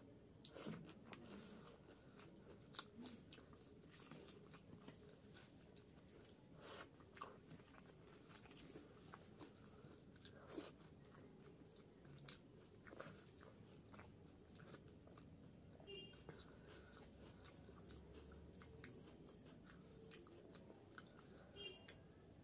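Faint close-miked chewing and mouth sounds of a person eating rice and curry by hand, with irregular soft clicks and smacks.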